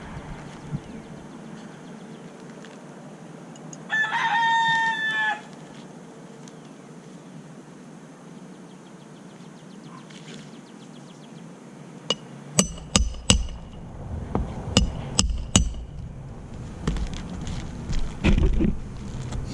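One loud pitched call, like a rooster's crow, lasting about a second and a half about four seconds in. Later, a run of sharp clicks or knocks over a low rumble.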